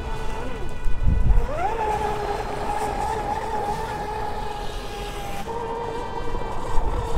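Radio-controlled speedboat's motor running at speed: a steady whine that glides up in pitch about a second and a half in, holds, and steps up again near the end. A brief low rumble comes about a second in.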